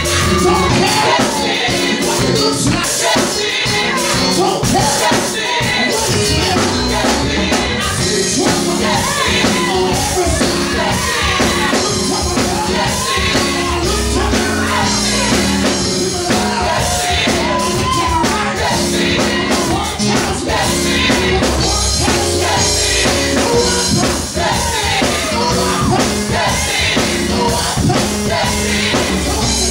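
Gospel praise team singing live, a male lead vocalist belting into a handheld microphone over other singers and instrumental backing.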